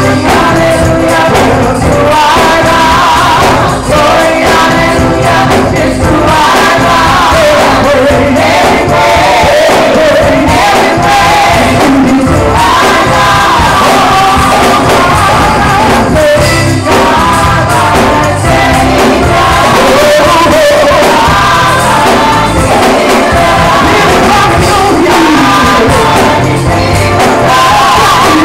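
Gospel choir singing loudly into microphones over instrumental accompaniment with a steady beat.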